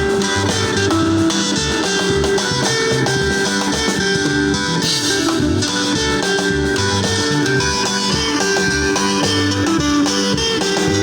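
Band music led by electric guitar picking a quick repeating melody, over a steady beat of drums and low bass notes. It is in the sebene guitar style.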